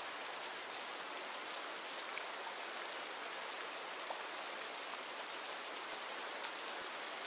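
Steady rain falling on a forest, an even patter with scattered faint drop ticks.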